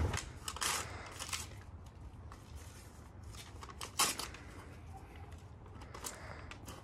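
Paper napkins rustling and crinkling in the hands, as scattered short crackles with one sharper crackle about four seconds in, over a low steady hum.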